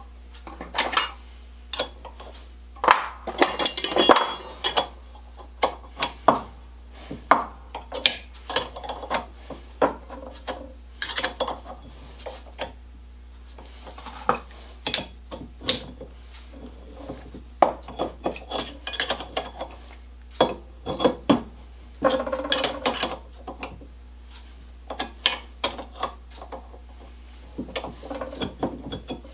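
Metal parts of an Armstrong-Blum Marvel hand rod cutter clinking, knocking and scraping as it is assembled by hand, with wrenches and other tools picked up and set down. Irregular metallic clicks and clatters, with a longer rattling scrape about three to five seconds in.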